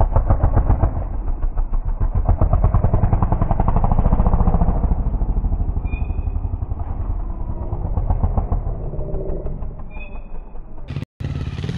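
Honda trials motorcycle engine running hard in quick throttle blips, its rapid firing pulses swelling to a peak about four seconds in and easing off toward the end.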